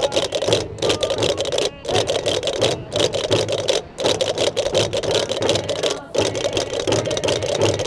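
Gomeran chácaras, large wooden castanets played in pairs by a group, rattling in fast rolls that break off briefly about once a second, with the beat of tambor frame drums beneath.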